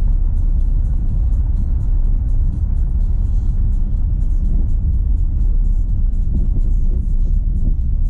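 Renault Sandero Stepway 2 driving on a dirt road: a steady low road and suspension rumble with many small irregular clicks and rattles, among which the small right-side suspension knock under investigation may be heard.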